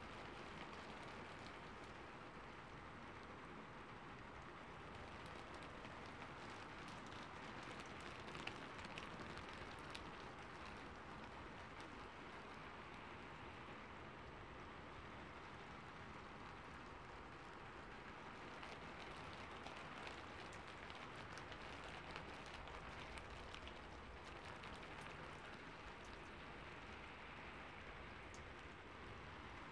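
Faint steady hiss of background noise, with a few faint clicks in the middle and later on.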